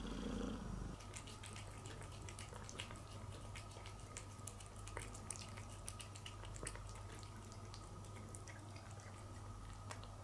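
A cat eating wet food from a plate: a run of small, irregular wet clicks and smacks of chewing over a steady low hum, after a brief low sound in the first second.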